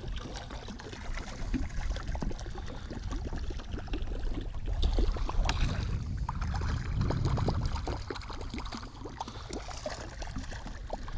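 Lake water churning and splashing as a topwater musky lure is swept in a figure eight right beside the boat, with scattered small ticks and knocks.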